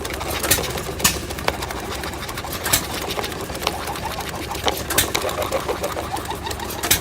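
Belt-driven jigsaw running steadily, its blade going up and down in a fast even rhythm, with scattered sharp clicks and knocks from the machine.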